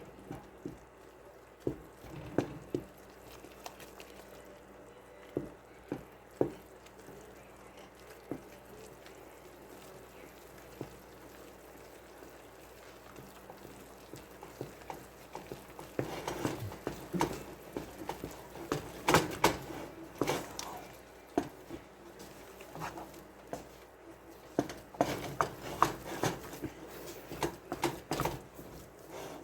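Wooden spoon stirring a thick paste of flour, melted butter and chicken broth in a saucepan, with scattered knocks and scrapes of the spoon against the pan. The knocks come thicker and louder in the second half.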